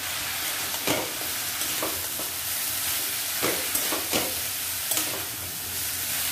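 Grated papaya and diced potato sizzling in a hot kadai while a metal spatula stirs them, scraping against the pan several times.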